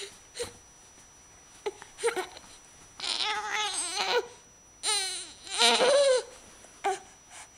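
Baby babbling: a few short grunts, then two longer drawn-out vocal sounds about three and five seconds in, the second the loudest.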